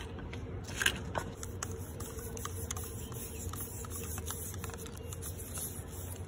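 Faint scraping and light ticks of thread-seal tape being wound by hand onto the threads of a plastic water-tank fitting, over a steady low hum.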